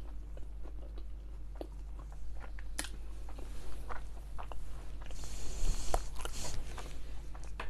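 Close-miked chewing of fries dipped in sauce: scattered small wet mouth clicks and smacks, with a louder hissing rustle lasting about a second and a half, about five seconds in.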